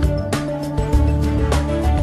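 Instrumental background music with held notes, a bass line and a steady beat.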